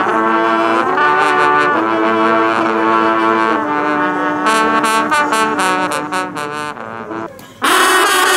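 An ensemble of French hunting horns (trompes de chasse) playing a fanfare together, with held notes giving way to quick repeated notes. About seven and a half seconds in, the playing breaks off and a second horn ensemble comes in loud.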